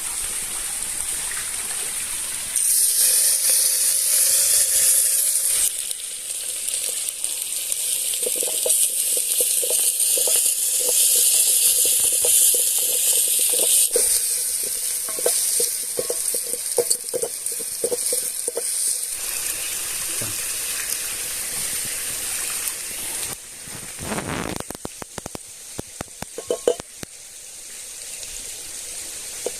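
Food sizzling in hot oil over a fire: a loud hiss that starts suddenly a few seconds in, with bursts of sharp spitting pops in the middle. It dies down near the end, leaving scattered clicks.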